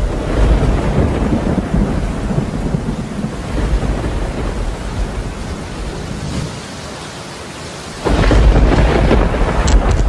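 Thunderstorm: steady rain with rolling thunder, and a loud thunderclap rumble breaking about eight seconds in.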